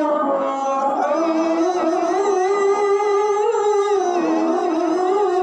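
Male qari's high voice chanting Quran recitation into a microphone, in long held notes with wavering melismatic ornaments that step up and down in pitch.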